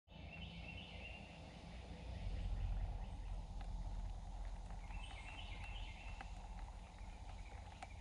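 Two short bursts of high, rapid chattering animal calls, one near the start and one about five seconds in, over a steady low rumble of outdoor noise.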